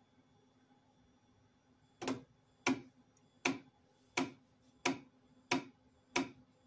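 Artillery Sidewinder X1's X-axis NEMA 17 stepper motor clicking sharply about every two-thirds of a second, starting about two seconds in, while the carriage fails to travel. The fault persists with a freshly fitted motor, so the owner suspects the stepper driver.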